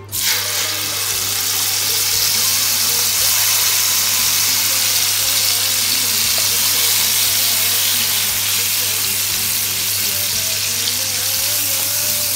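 Blended dried-chilli paste sizzling loudly in hot oil in a wok. The sizzle starts suddenly as the paste goes in and then holds steady as it fries.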